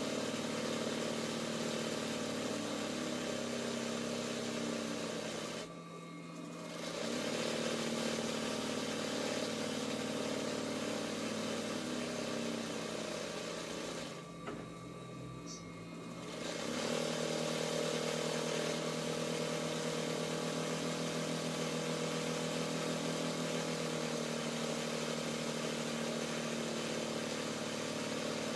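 RANEW 130 zigzag sewing machine running at speed for free-motion embroidery, a steady mechanical hum. It eases off briefly about six seconds in and again for a couple of seconds around the middle, then picks up again.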